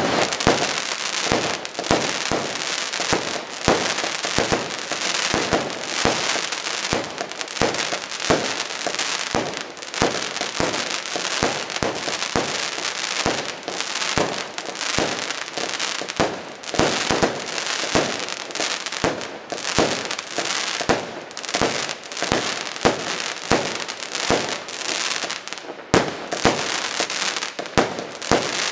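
A 200-shot, 20 mm firework cake ("Earth Tremor") firing nonstop, its small shells launching and bursting in a dense, rapid stream of sharp pops, several a second.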